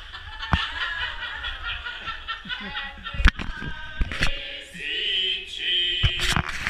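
A group of people laughing and chuckling together, with a few sharp knocks, the loudest about three seconds in.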